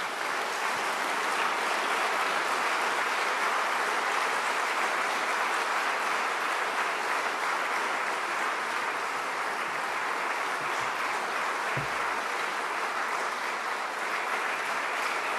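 Audience applauding: a steady, sustained round of clapping from a large seated crowd.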